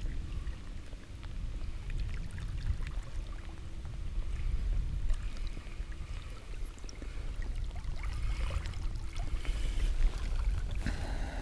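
Low rumbling of moving river water around a wading angler, mixed with wind buffeting the microphone, with a few faint ticks.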